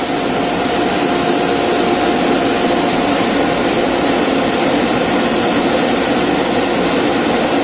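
Atlas Copco GA11 11 kW rotary screw air compressor running steadily inside its closed sound-baffled enclosure: an even mechanical rush with a steady hum and whine held throughout.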